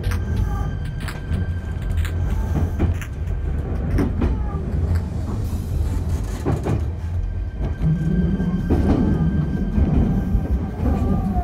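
Electric train running on track, heard from inside the front car: a steady low rumble with sharp clicks every second or two as the wheels cross rail joints, growing a little louder in the last few seconds.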